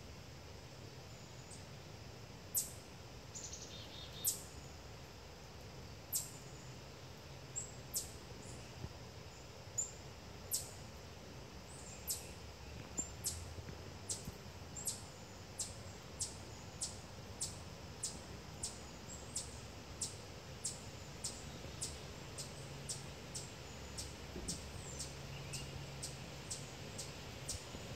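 A bird's short, high chip calls, a few at first, then repeated steadily about one and a half times a second, with a brief buzzy trill about four seconds in. A faint low hum sits underneath.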